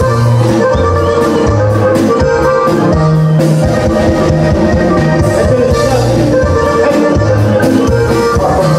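Live norteño band music: an accordion melody over held tuba bass notes with guitars and a steady beat, loud throughout.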